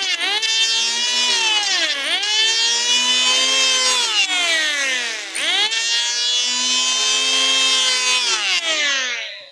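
Electric hand planer's motor whining at high speed, its pitch sagging and recovering three times as the blade bites into the wooden board. It winds down and stops near the end.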